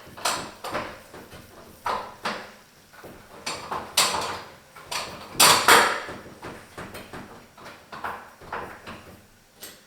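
Irregular light clicks, taps and short scrapes of a small hex driver and metal set screw being worked against a towel bar's mounting bracket, with a cluster of louder knocks about halfway through.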